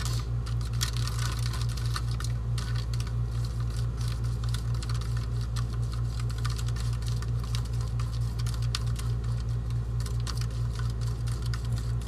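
Clear plastic spoon clicking and scraping against a red plastic bowl in quick, repeated stirring strokes as a thick sauce is mixed, over a steady low hum.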